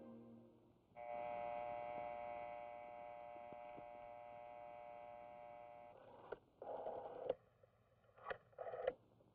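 Telephone dial tone, a steady hum lasting about five seconds, which stops once dialling begins. A rotary telephone dial is then turned and let go twice, clicking and whirring as it runs back.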